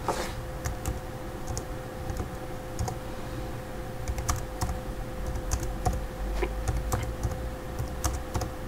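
Computer keyboard typing: irregular keystroke clicks as short numbers are typed and Enter is pressed after each, over a steady background hum.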